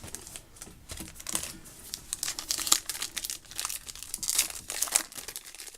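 A trading-card pack wrapper being torn open and crinkled in the hands: a fast, irregular crackle, loudest in the middle and latter part.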